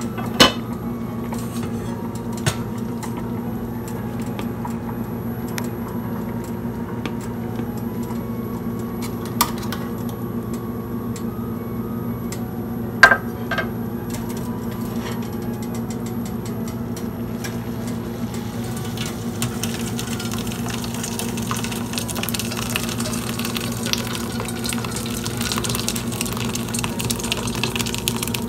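Clinks of a steel pot and utensils over a steady hum, with one sharp clank about halfway through. In the last ten seconds a splashing rush builds as curdled milk and whey are poured from the pot into a straining cloth.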